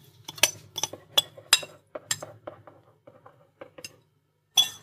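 Spoon, bowl and wooden spatula clinking and tapping against each other and the wok as milk powder is tipped in. A run of sharp taps about three a second for the first two seconds, then fainter ones, and one louder clink near the end.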